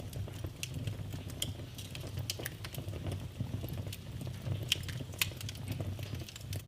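Wood fire crackling in a fireplace: a steady low rumble of flames under many small irregular crackles, with two louder pops a little past the middle.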